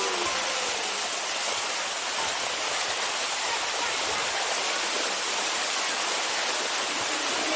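Steady rush of water cascading down a waterfall, an even hiss with no change in level.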